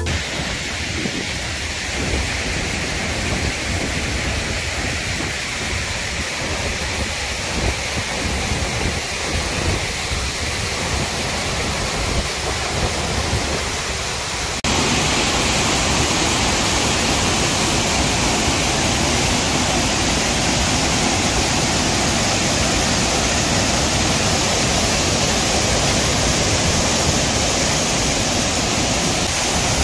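Waterfall pouring: a steady rush of falling water that turns suddenly louder and brighter about halfway through.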